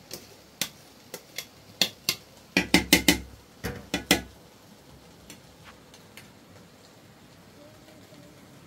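Metal cookware clanking: a steel colander, a metal scoop and a cooking pot knocking together as drained rice is tipped back into the pot. About a dozen sharp clinks over the first four seconds, with a quick run of louder clanks around three seconds in, then only a few faint ticks.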